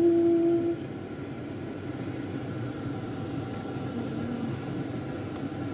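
A voice held on one long drawn-out note for about the first second, then a steady low hum with a faint click near the end.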